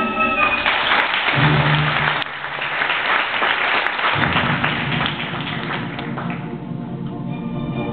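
Theatre audience applauding after the orchestral music breaks off. The applause fades out about six seconds in, while the orchestra starts again underneath, low at first and then fuller near the end.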